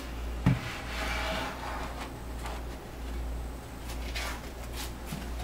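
Wooden boards and the plywood hive base handled on a work table: a sharp knock of wood set down about half a second in, then a second or so of scraping, and a few lighter knocks and rustles later, over a steady low hum.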